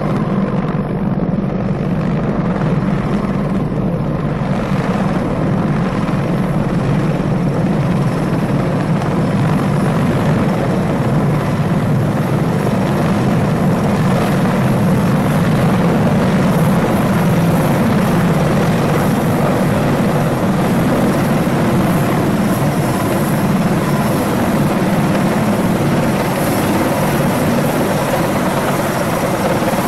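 Mi-26 heavy-lift helicopter flying close by, carrying an airliner slung beneath it: a steady, loud drone of rotor and turbines that grows fuller and a little louder as it approaches over the first half.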